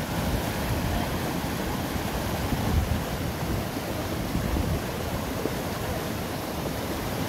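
Whitewater of a fast mountain river rushing steadily over rocks.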